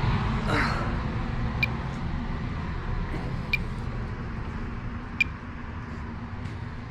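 Steady low rumble of a gas furnace's blower pushing air out of a supply vent, with a short faint tick about every two seconds.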